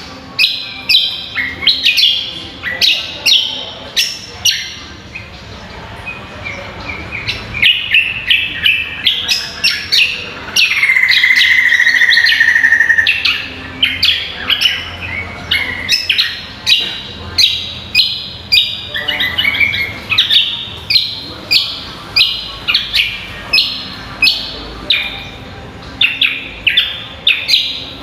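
Greater green leafbird (cucak kombo) singing: a fast run of short, sharp whistled notes, about two a second, broken about ten seconds in by one loud held note lasting about three seconds.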